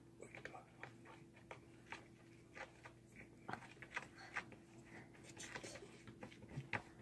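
Faint, scattered scratching and tapping of a cat's paws and claws on a wooden tabletop as she digs at a cloth, over a low steady hum.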